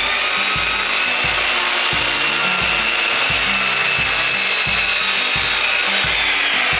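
A power saw running and cutting wood: a loud, steady motor whine holds, then drops in pitch and cuts off just after the end.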